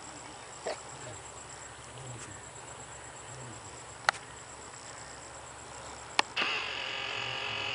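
Insects trilling in a steady, fast high chirp, with two sharp clicks about four and six seconds in; just after the second click a louder, steady insect buzz starts and holds.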